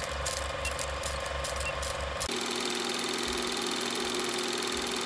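Film projector sound effect: the reel mechanism runs with a rhythmic clatter of about four beats a second, which gives way a little over two seconds in to a steadier hum.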